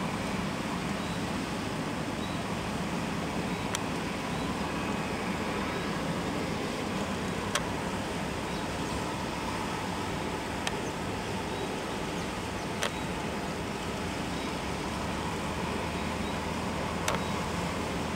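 Boeing 777-300ER airliner on final approach, its jet engines making a steady distant rushing noise, broken by a few sharp clicks.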